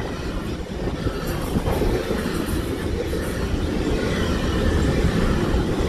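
Double-stack intermodal freight train passing close by: a steady rumble of wheels and container cars rolling over the rails.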